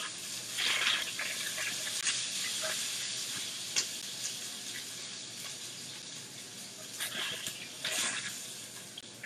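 Chicken pieces frying in hot oil: a steady sizzle that slowly dies down, with a few short sharper clatters.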